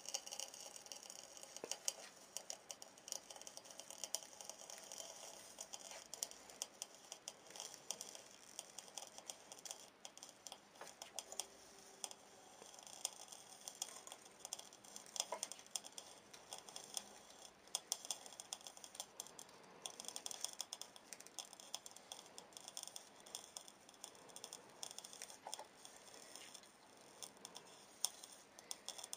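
Dense, irregular crackling and popping of a tin can's metal lid being burned through by a 100 W blue laser beam, sparks spattering, over a faint steady hum.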